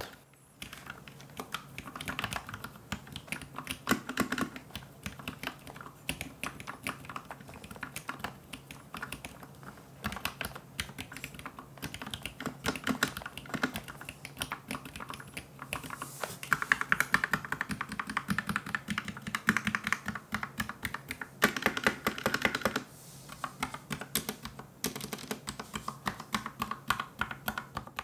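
Typing on a Vissles V84 V2 mechanical keyboard with its stock VS linear switches and PBT keycaps: a continuous run of keystroke clacks, busiest in two stretches past the middle.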